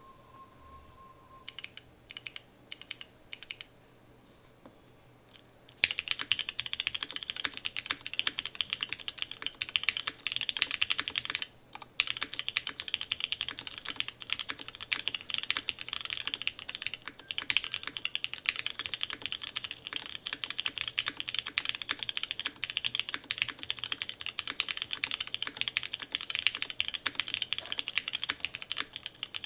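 TGR 910 ME mechanical keyboard being typed on: O-ring mount, polycarbonate plate, no foam, lubed and filmed Cherry MX Black linear switches and GMK keycaps. A handful of separate key presses come first, then after a short pause steady fast typing, broken once briefly.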